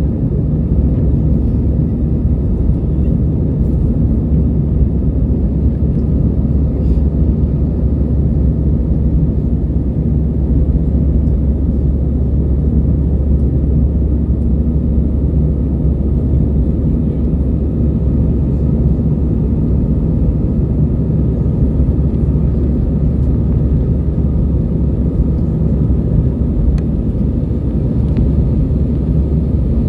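Steady low rumble of an Airbus A320's jet engines and airflow, heard inside the passenger cabin, with no change in pitch.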